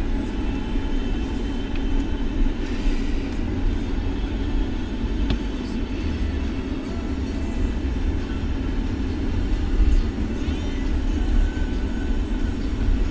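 A car driving along, a steady low rumble of road and engine noise, with one short click about five seconds in.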